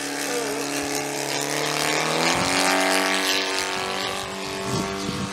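Saito FG-61TS 61 cc horizontally opposed twin-cylinder OHV gasoline engine, turning a 22×10 propeller on a quarter-scale Piper Pawnee model aeroplane in flight, running steadily. Its note rises in pitch and grows louder about two seconds in, then holds at the higher pitch.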